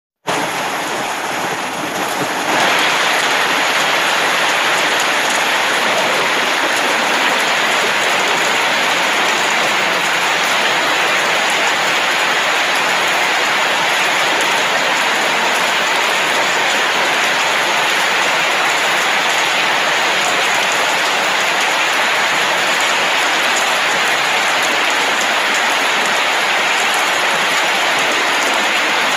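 Steady rain falling at night, an even hiss of many drops with no pauses, a little louder from about two and a half seconds in.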